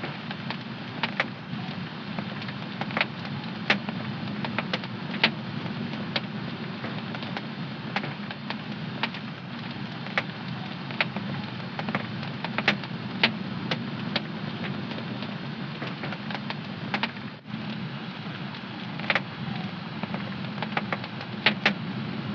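Wood fire crackling in a home fireplace: a steady hiss of burning with irregular sharp pops and snaps, about one a second.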